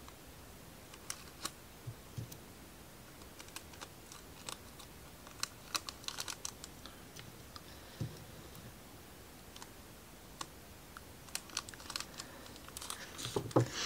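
Light, irregular clicks and crinkles from a small plastic parts bag being handled and picked through with tweezers, getting busier and louder near the end.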